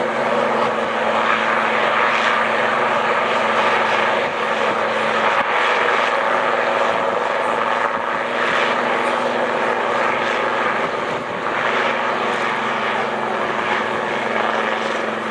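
A Westland Lynx twin-turbine helicopter flying past: steady rotor and turbine noise with a low hum under it, easing slightly toward the end as it moves away.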